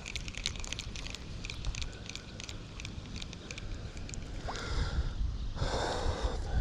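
Steady low rush of spillway water with wind buffeting the microphone. A quick run of faint clicks fills the first few seconds, and two short hissing swells come near the end.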